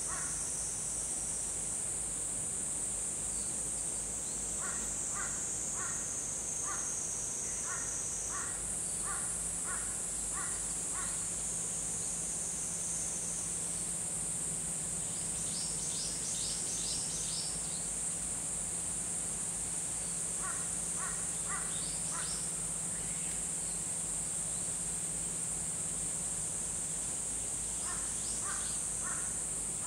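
Birds calling outdoors: short runs of four to eight repeated caw-like notes come several times, and a faster, higher series of notes sounds twice in the middle. A steady high-pitched buzz runs underneath throughout.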